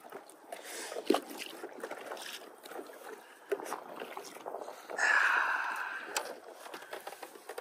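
Small waves slapping and splashing against the hull of a Pond Prowler 10 mini pontoon boat, with scattered knocks. A louder splash comes about five seconds in and trails off over a second or so.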